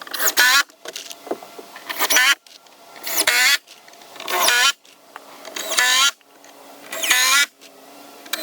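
A power drill driving screws into a wooden trim board: six short whirring trigger bursts, each about half a second long, coming about every second and a bit.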